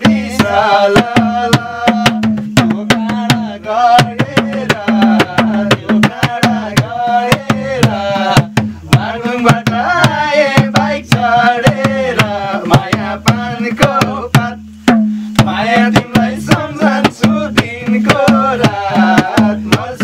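Madal, a Nepali two-headed barrel hand drum, played in a quick, even rhythm to accompany a Nepali dohori folk song, with a voice singing the melody over it.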